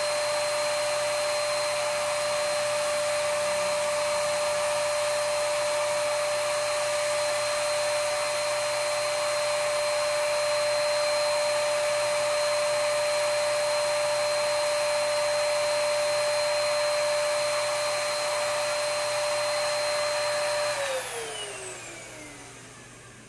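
Earlex 5500 HVLP spray station's turbine running steadily with a high whine and rushing air. Near the end it is switched off and spins down, the whine falling in pitch and fading.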